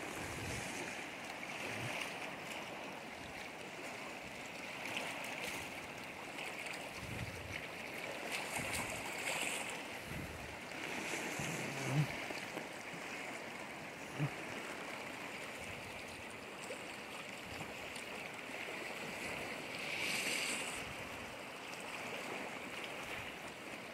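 Steady wash of moving water, with a couple of short soft knocks about halfway through.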